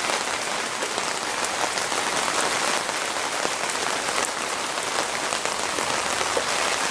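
Heavy thunderstorm rain falling steadily, with many individual drops ticking close by.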